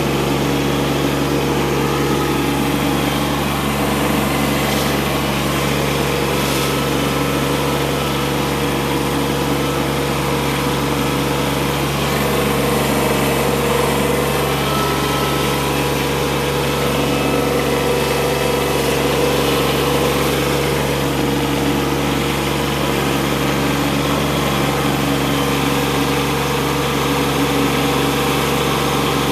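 Kubota B2601 compact tractor's three-cylinder diesel engine running steadily, heard from the operator's seat.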